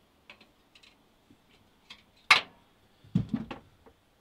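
Clicks and knocks from hands working on an old Armstrong Siddeley diesel engine as it is readied to start, the engine not yet running. Scattered light ticks, one sharp click a little past two seconds in, then a quick run of heavier knocks near the end.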